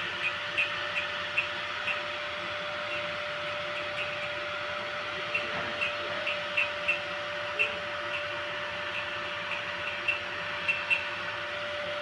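Gas-shielded flux-cored arc welding in a continuous bead: a steady crackling hiss of the arc with a steady whine underneath and scattered sharp spatter pops.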